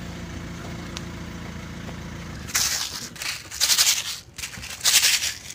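A low steady hum, then three loud crackling rustles of stiff, crushed plastic being picked up and handled.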